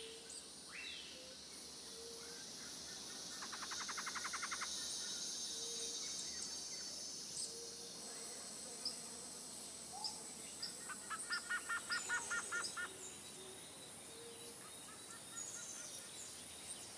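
Tropical jungle ambience: assorted birds chirping and whistling over a steady high insect hiss, with a rapid trill about four seconds in and a run of about eight quick repeated notes around twelve seconds in.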